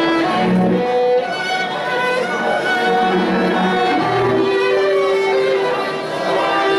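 String music led by a violin, with lower bowed strings beneath, playing long held notes.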